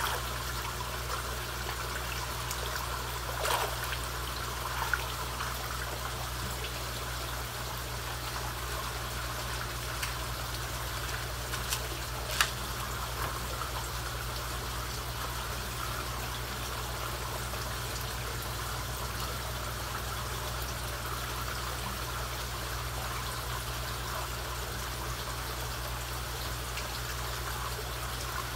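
Steady trickling and lapping of koi pond water over a low steady hum, with a few short splashes as koi take pellets at the surface from a hand; the loudest splash comes about twelve seconds in.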